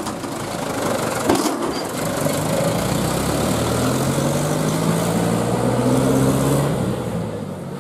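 Mitsubishi Canter light truck's diesel engine pulling away under a heavy load, its pitch climbing steadily as it accelerates, then fading near the end as it moves off.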